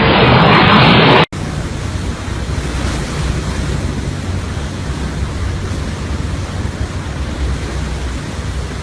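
Steady roar of Hurricane Irma's hurricane-force wind, a dense even hiss. About a second in, a louder, more muffled noisy stretch cuts off abruptly before it.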